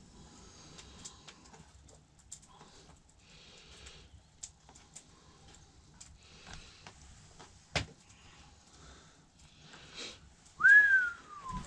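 Quiet scrapes and clicks of moose meat being moved from a cutting board onto a pie crust, with one sharp click about eight seconds in. Near the end, a short whistle rises and then slides down in pitch; it is the loudest sound.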